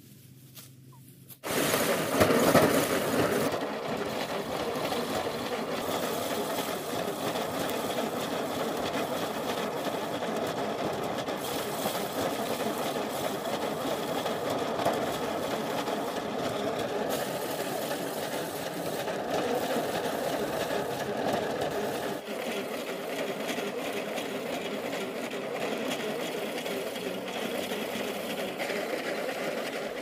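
Pedal-operated rice thresher, its treadle-driven spiked drum spinning with a steady whirring rattle as rice bundles are held against it to strip off the grain. It starts suddenly about a second and a half in.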